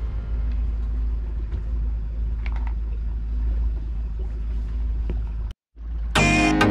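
Motorboat engine running under way, a steady low rumble heard from inside the cockpit. It cuts off abruptly about five and a half seconds in, and music starts shortly after.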